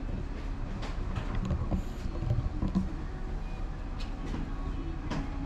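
Steady low machine rumble with a wavering hum, and a few faint clicks.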